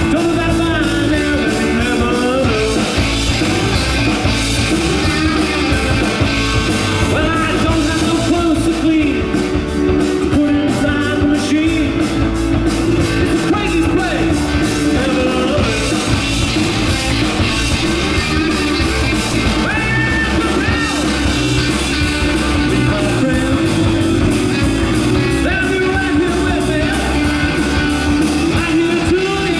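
Rock song with a singer over guitar and a steady beat.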